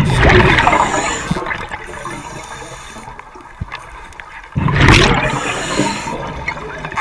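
A diver's exhaled breath bubbling out of the regulator underwater: two loud, gurgling rushes, one at the start and one about four and a half seconds later, with a quieter hiss between.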